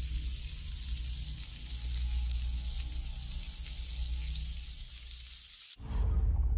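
Vegetables sizzling and frying in a hot wok: a steady hiss over a low rumble. About six seconds in it cuts off abruptly, and a louder burst of sound follows and begins to fade.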